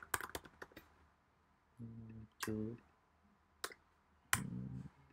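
Computer keyboard keystrokes typing into a form: a quick run of clicks at the start, then single key presses spaced about a second apart. A voice murmurs a few short syllables between them.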